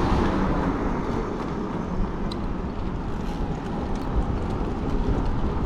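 Steady low rumble of wind on the microphone during an outdoor e-bike ride, with a few faint ticks.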